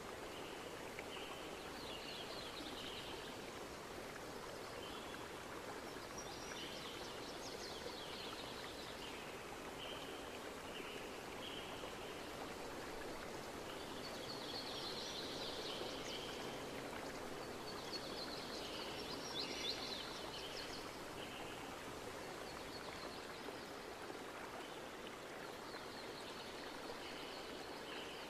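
Steady rush of a flowing stream with birds chirping on and off over it.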